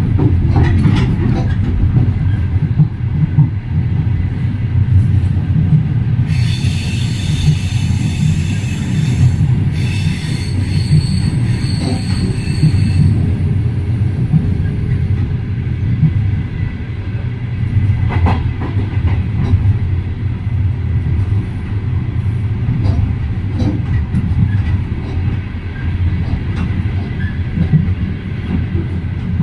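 Adler–Moscow passenger train's wheels running on the rails: a steady, loud rumble with a few sharp knocks. A high-pitched wheel squeal sounds from about six to thirteen seconds in.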